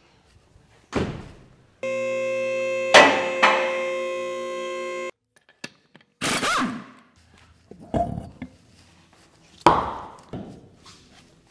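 Two-post vehicle lift's motor running steadily for about three seconds, with a clunk partway through. Then come short bursts from a cordless impact wrench and knocks as a large off-road wheel and tyre come off.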